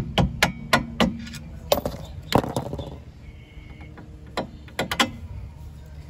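A mallet knocks on the end of a flathead screwdriver, driving a suspension bolt that is stuck with grime. There is a quick run of sharp strikes, about four a second, in the first second, then a few more scattered knocks.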